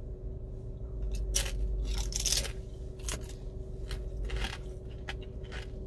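Crunching of a crisp chip bitten and chewed close to the microphone: a string of short crunches, loudest one to two and a half seconds in, thinning to softer chewing.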